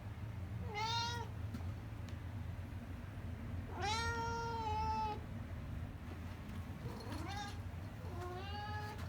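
A domestic cat meows four times: a short meow about a second in, a longer drawn-out meow around the middle, then two more near the end. A steady low hum runs underneath.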